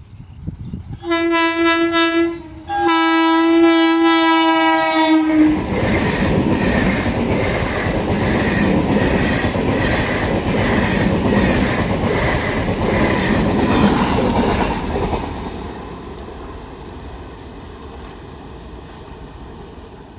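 Indian Railways locomotive horn sounding twice, a short blast and then a longer one, followed by a train passing at speed with its wheels clattering in a regular beat over the rail joints. The noise then fades as the train goes away.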